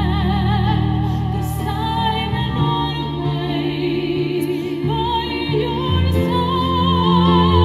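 Operatic soprano singing: long held notes with wide vibrato over sustained instrumental accompaniment.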